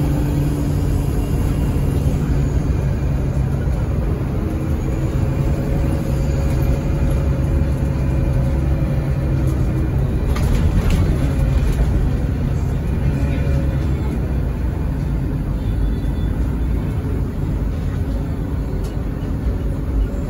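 City bus driving, heard from inside the passenger cabin: a steady low drone of engine and road noise with a faint hum that drifts slowly in pitch, and a few light rattles about halfway through.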